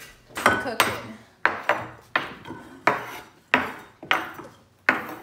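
A metal kitchen utensil banging down hard on a tiled countertop again and again, about nine sharp strikes at an uneven pace, each with a short ring. It is smashing a wrapped snack bar into crumbs.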